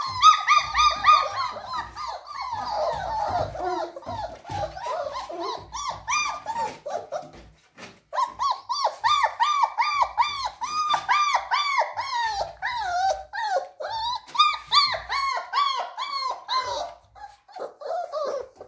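German Shepherd puppies whining and yelping in a rapid run of short, high, arching cries, several a second, with a brief lull about eight seconds in.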